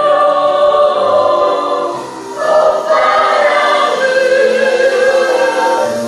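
A family choir singing a Korean children's song in held, sustained notes, with a short phrase break about two seconds in; the words "꽃바람을" ("the flower breeze") come near the end.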